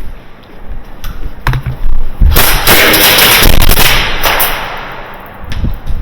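Airsoft guns firing indoors: a few separate shots, then a dense stretch of rapid fire lasting about two seconds starting a little past two seconds in, followed by scattered shots.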